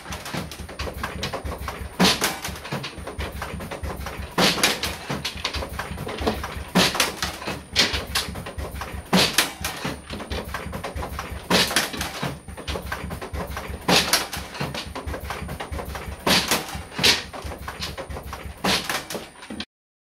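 MHP VPLUG frame assembly machine underpinning stretcher-bar frames with V-nails: a sharp bang about every two and a half seconds, with quieter clacks in between over a steady machine hum. The sound cuts off abruptly near the end.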